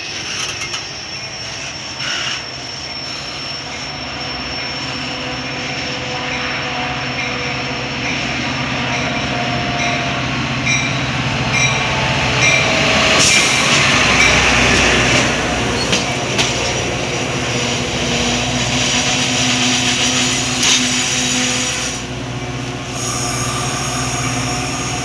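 Metra commuter train approaching and passing: a steady engine hum and the rush of wheels on the rails building to a peak about halfway and then easing off. Evenly spaced wheel clicks come through near the middle.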